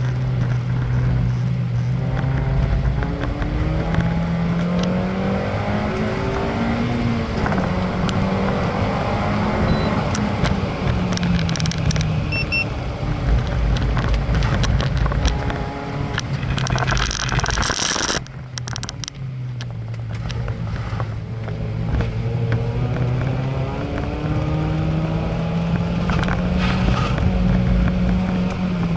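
A vehicle's engine lapping a circuit, its revs climbing and falling again and again through the corners. A loud burst of rushing noise comes about 17 seconds in, and then the revs build up again.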